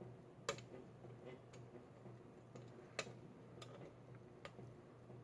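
Faint, scattered small clicks of a homemade hook pick and pry-bar tension tool working the pins of a Defiant padlock, with two sharper clicks about half a second and three seconds in.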